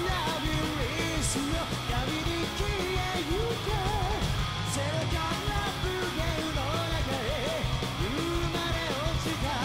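Live rock band playing a song at full volume: guitars, bass and drums, with a vocalist singing over them.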